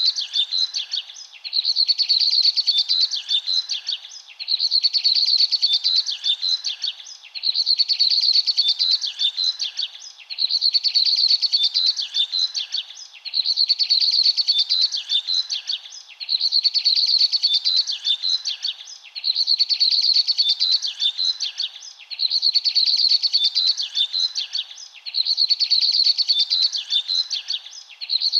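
High, rapid bird chirping in a phrase of about two and a half seconds that repeats every three seconds or so, the same each time.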